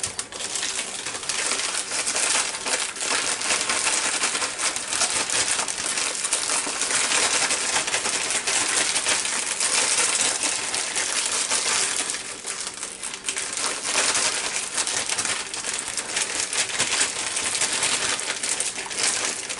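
Plastic bag crinkling and rustling as it is shaken with sliced squash and zucchini and dry fish-fry breading mix inside, the slices knocking together. It runs on steadily, easing briefly about two-thirds of the way through.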